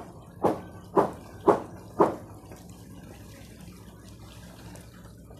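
Five footsteps on wooden planks, one every half second, each a sharp knock. After them there are only faint water sounds.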